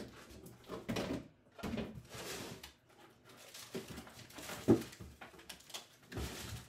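Refrigerator contents being handled: a series of knocks, light thumps and rustling as items are moved about and taken off the shelves. The loudest thump comes about two thirds of the way through.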